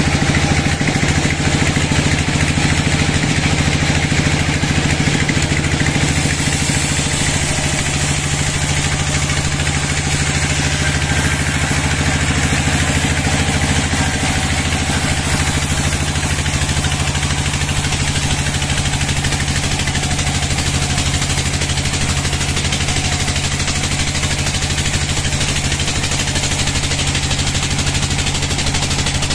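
Band sawmill running with a steady low machine hum. About six seconds in, a high hissing rasp joins it as the band blade enters the big teak log and saws along its length.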